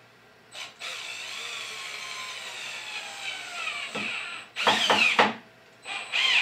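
BLACK+DECKER 20V MAX cordless drill/driver (LDX120C) driving a self-tapping Phillips screw into wood at a low torque setting. The motor whines steadily and its pitch falls slowly as the screw sinks in. A few short, louder bursts follow about two-thirds of the way through, and another starts near the end.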